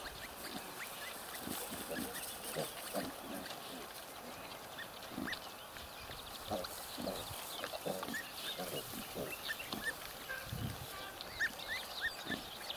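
A sow and her two-week-old piglets at the teats: frequent short, irregular low grunts and scattered brief high squeaks. There is a louder low grunt about two-thirds of the way through, and the squeaking grows busier near the end.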